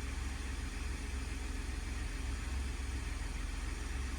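2020 Ford F-150's 2.7L twin-turbo EcoBoost V6 idling steadily, a low, even engine hum.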